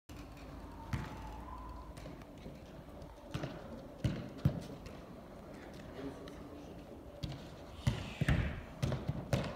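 A football being kicked and bouncing on artificial turf: a series of sharp thumps, a few spread through the first half and a quick cluster near the end.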